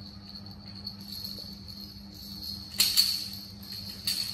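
Plastic baby rattle toy shaken, its beads rattling and jingling, with two loud sharp rattles about three seconds in and near the end. A faint steady high-pitched tone runs underneath.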